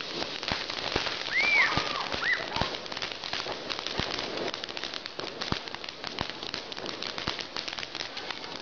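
Ground fountain firework spraying sparks: a steady crackling hiss with scattered sharp pops, and a couple of brief whistle-like tones about a second and a half in.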